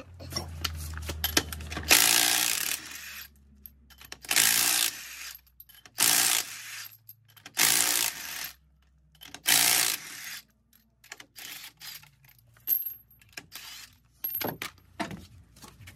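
Milwaukee FUEL cordless impact wrench running lug nuts onto a wheel in about six short bursts, one to two seconds apart, with small metallic clinks of socket and lug nuts between them.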